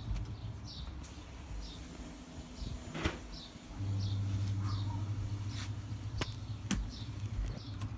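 A small bird chirping over and over, short falling notes about every half second. Under it a steady low hum gets louder about four seconds in, and there are a few sharp clicks.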